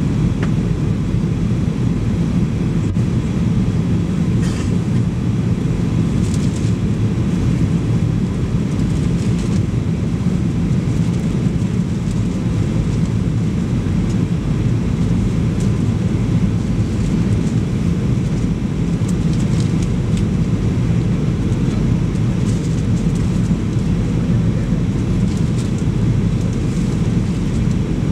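Steady cabin noise inside a Boeing 737-800 in flight, heard over the wing: the even, low drone of its CFM56 engines and the airflow, with a few faint clicks.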